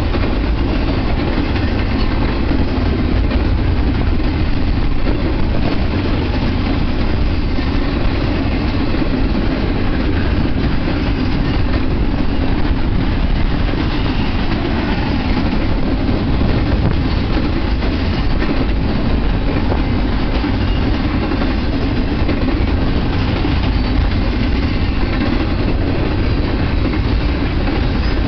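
Double-stack intermodal freight train's container well cars rolling steadily past, a continuous low rumble of steel wheels on rail.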